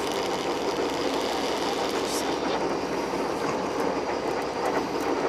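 Fishing boat's engine running steadily: a constant low hum under a wash of noise.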